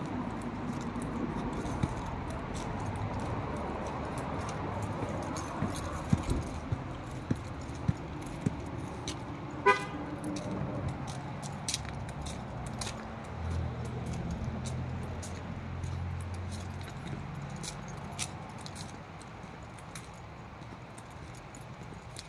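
Scattered sharp clicks and light jingling over a steady outdoor hiss, with a low hum for a few seconds just past the middle.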